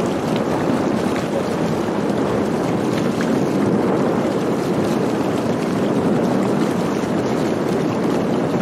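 Steady rushing of wind and water around a moving sailing catamaran.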